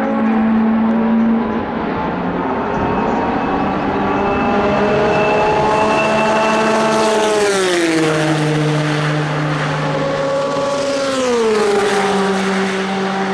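Porsche 962C Group C racing car's twin-turbo flat-six engine running hard at high revs. Its pitch climbs slowly, then sweeps down sharply about halfway through and again near the end.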